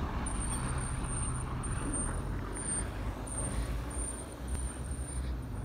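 SUV driving slowly past on a snow-covered road: a steady low rumble of engine and tyres on packed snow.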